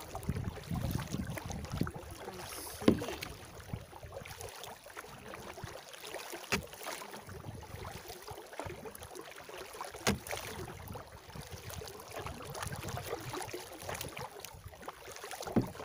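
Double-bladed kayak paddle dipping and splashing as a tandem sit-on-top kayak is paddled, with water running off the blades and a few sharp knocks every three to four seconds.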